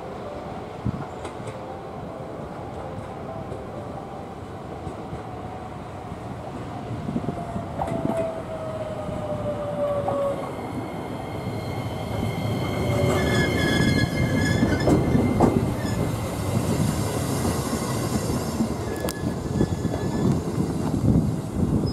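JR West 125 series electric train arriving and slowing to a stop: a whine falling in pitch as it brakes, then a high squeal and the clatter of wheels over the rails. It is loudest as the car passes, about two-thirds of the way in.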